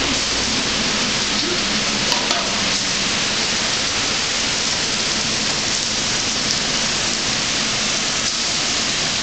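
Bacon-wrapped filet mignon sizzling on a commercial kitchen grill, with food frying in a pan on the range: a steady hiss.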